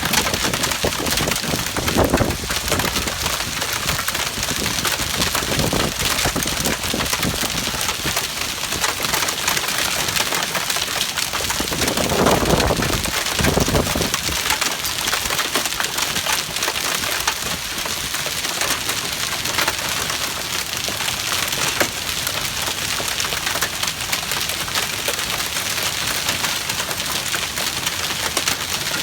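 Hailstones pelting down in a dense, steady clatter of countless small impacts, with a few louder swells, the strongest about twelve to fourteen seconds in.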